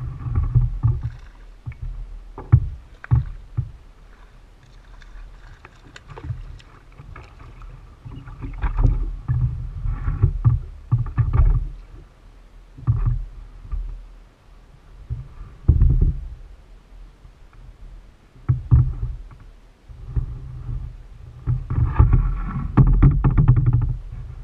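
Kayak noise on the water: repeated low rumbling thumps and sharp knocks on the plastic hull, heard through a camera mounted on the bow, with fainter water noise, busiest near the end while a crappie is reeled in and landed.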